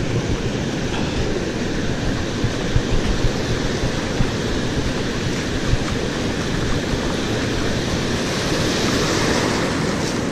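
Ocean surf breaking and foamy wash running up over the sand in a steady rush, with wind on the microphone.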